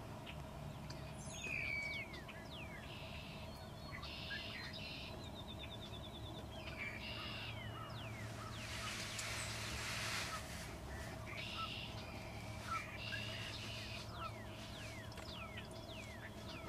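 Songbirds singing at dawn: short song phrases repeated every second or two, with many quick downslurred chirps between them. A brief rush of noise comes about nine seconds in.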